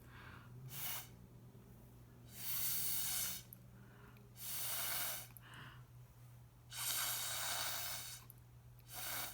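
Breath blown through a reusable straw in five breathy puffs of about half a second to a second and a half each, pushing wet watercolour across the paper into streaks.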